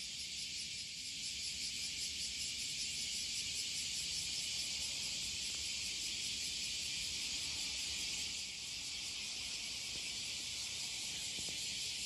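Chorus of many cicadas: a steady, dense, high-pitched buzzing with a fine rapid pulse.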